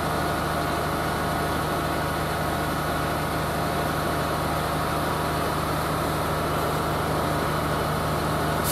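Engine of a railway work vehicle running steadily at an even speed, driving its hydraulic loader crane as it lowers a heavy load. A brief hiss comes right at the end.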